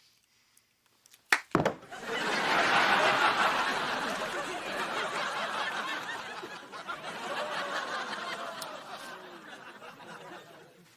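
Two sharp knocks, then a sitcom studio audience laughing, swelling quickly and slowly dying away.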